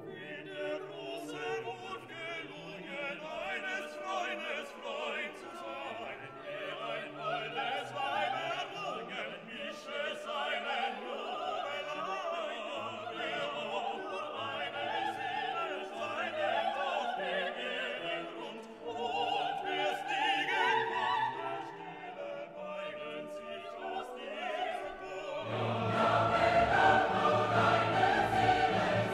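Classical background music with operatic singing over an orchestra. It swells louder and fuller near the end.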